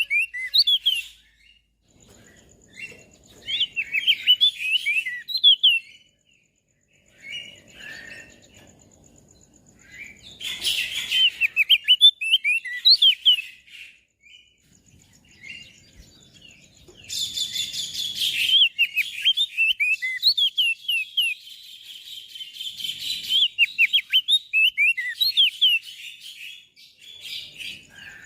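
Crested white-eye (opior jambul) singing in phrases of rapid, high chirping notes, with short pauses between phrases.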